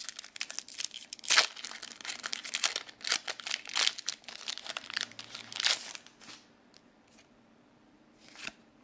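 A foil trading-card booster pack wrapper being torn open and crinkled by hand: a run of sharp tearing and crackling crinkles for about six seconds, then only faint rustling as the cards come out.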